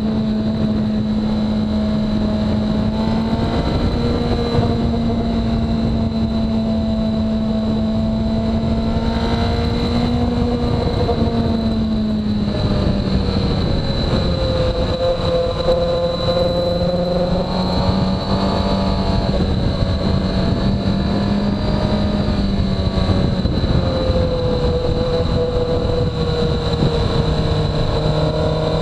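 2017 Suzuki GSX-R1000R's inline-four engine running at a fairly steady cruise under wind rush. Its pitch eases down a little about twelve seconds in and again near twenty-four seconds.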